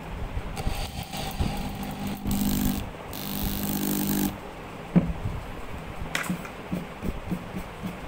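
Power drill-driver running in two short bursts, driving a countersunk wood screw down into plywood until the head sits flush. A sharp knock follows about five seconds in, then a few light ticks.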